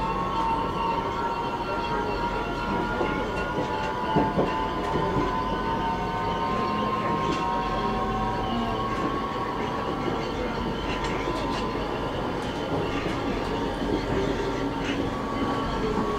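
Budapest M2 metro train running, with a steady rumble of wheels and motors. A high whine slowly falls in pitch, and there are a few sharp clicks of the wheels over rail joints.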